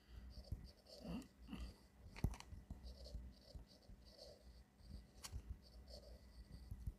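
Faint scratching of a stylus writing on a tablet screen, with a couple of sharper taps of the stylus tip on the glass.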